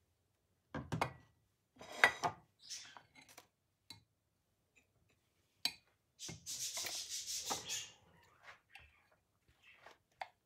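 A metal spoon and a glass food-processor bowl full of thick pistachio paste being handled, with the blade assembly lifted out and set on a plate. A few knocks and clinks come in the first seconds, then a scraping rub lasting about two seconds, six seconds in.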